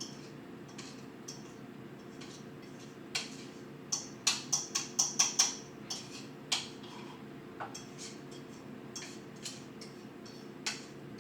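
Scattered light clicks and taps of kitchenware as graham crackers are pressed into baking pans, with a quick run of about seven sharp clicks a little after four seconds in, over a steady low hum.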